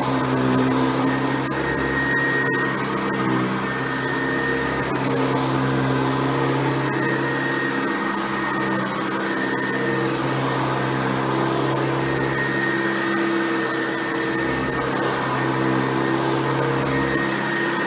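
Hoover Convertible U4349 upright vacuum cleaner with a top-fill Type A bag running steadily while vacuuming, its motor hum wavering slightly in pitch.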